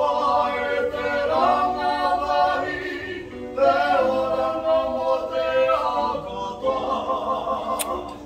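Two teenage boys singing a slow song together, holding long notes in phrases of a few seconds each.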